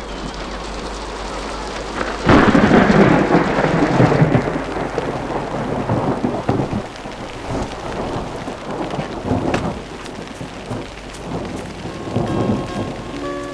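A thunderclap crashes in about two seconds in and rumbles away over several seconds, over the steady hiss of falling rain.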